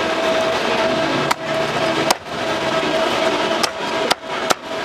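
A cleaver chopping on a wooden block: six sharp chops at uneven intervals over a steady street din.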